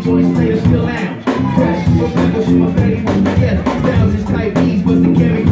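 Live hip-hop band playing loud: drum kit beat, bass and keyboards, with vocals into microphones on top.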